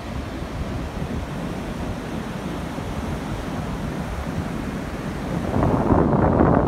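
Rough ocean surf breaking and washing up the beach, a steady rushing noise. Wind buffets the phone's microphone, growing louder and gustier about five and a half seconds in.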